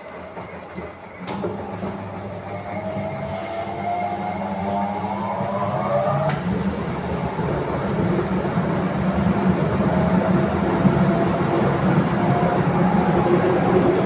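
Miele Professional washing machine's drum speeding up from tumbling into a spin. The motor whine rises in pitch and the running grows steadily louder, with a click about a second in and another about six seconds in, where the rising whine breaks off into a steadier high-speed hum.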